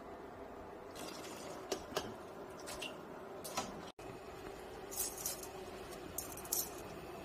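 Scattered light clinks and taps of utensils against a stainless steel pot and a metal mesh strainer while blanched greens are stirred and then handled out of the strainer, over a steady low kitchen hum. The sound breaks off briefly about 4 s in and then goes on.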